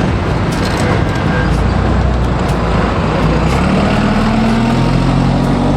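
Bus engine running amid heavy road noise, its note rising about three and a half seconds in.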